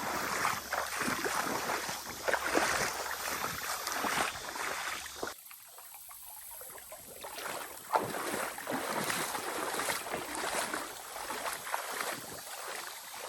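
Footsteps sloshing and splashing through shallow swamp water and mud in an irregular run. The sound drops off abruptly about five seconds in, then the sloshing resumes.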